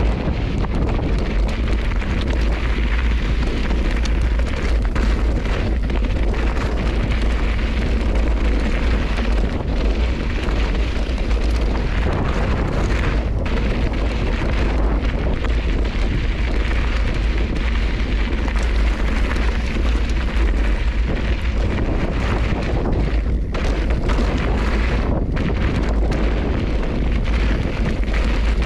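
Steady wind rumble buffeting a helmet or handlebar camera's microphone while riding a bike down a rocky dirt trail, with scattered knocks and rattles from the tyres and bike over loose rocks.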